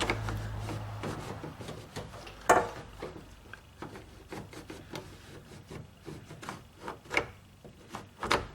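A removal tool being worked in behind a car's interior door handle, scraping and rubbing between the plastic and the metal, with scattered clicks and one sharper knock about two and a half seconds in.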